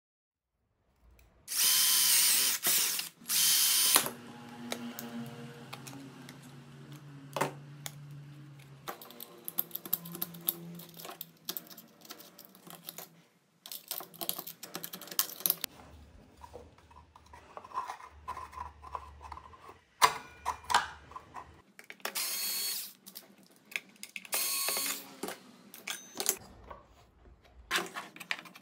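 Hand cutting of a thin aluminium composite panel sheet with a blade: irregular scraping and scoring strokes, the loudest in a few bursts near the start and again near the end, with clicks and small handling noises between.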